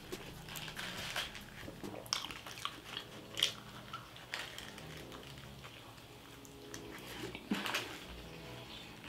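Close-up eating sounds: biting into and chewing a kebab wrap, with wet mouth clicks and short crunches. The loudest crunches come about two, three and a half, and seven and a half seconds in.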